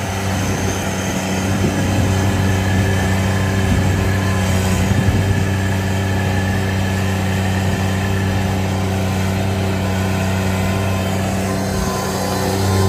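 Bobcat tracked skid steer's engine running steadily under load as its bucket digs in under a tree to lift it out with the root ball.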